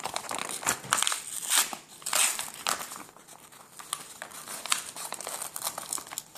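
Yellow manila paper envelope being torn open by hand, its paper crinkling and rustling. The louder rips and crinkles come in the first three seconds, with softer rustling after.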